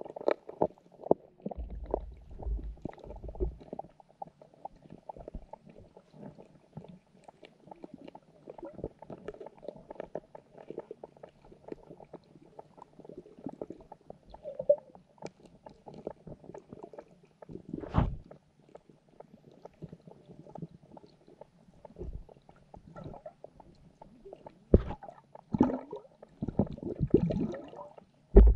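Muffled underwater sound of a carp and goldfish pond heard through a submerged camera: a constant crackle of small clicks and gurgles. Deep thumps come a couple of seconds in, a sharp knock about two-thirds of the way through, and a run of louder knocks and bumps near the end.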